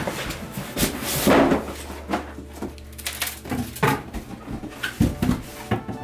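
A cardboard carton being pulled off a boxed humidifier in its styrofoam packing: a run of scrapes, rustles and knocks. The loudest come about a second in and again at about five seconds.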